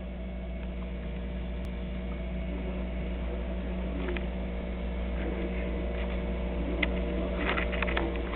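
A steady low hum, with a few light clicks and rustles near the end.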